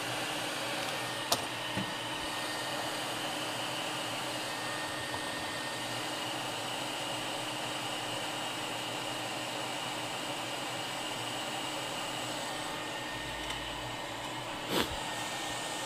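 Steady blowing noise of an electric blower at a microsoldering bench, with a faint click about a second in and a soft knock near the end.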